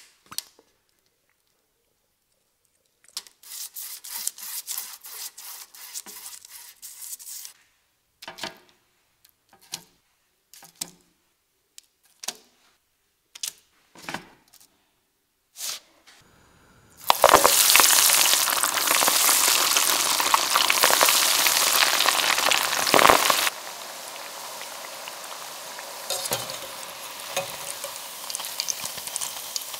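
A run of soft taps and separate clicks as breaded zucchini rings are set on a parchment-lined baking tray. Then breaded zucchini rings deep-fry in hot oil: a loud, steady sizzle that drops suddenly to a quieter sizzle with small pops while a wire skimmer lifts the rings out.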